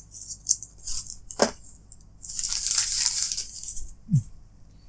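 Headphone packaging being handled: a scatter of light clicks and taps, with a rustle of packaging lasting about a second midway through.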